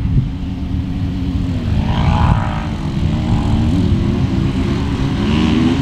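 Off-road vehicle engines, from side-by-sides and dirt bikes, running in a steady drone under a heavy low rumble. A brief rev lifts the pitch about two seconds in and again near the end.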